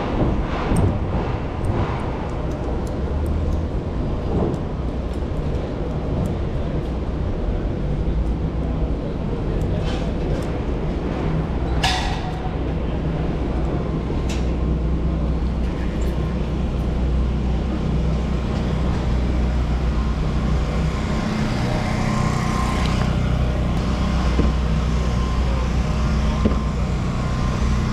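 Street traffic noise with a steady low rumble of wind on the microphone, as heard from a bicycle riding through city traffic. A short sharp knock stands out about twelve seconds in.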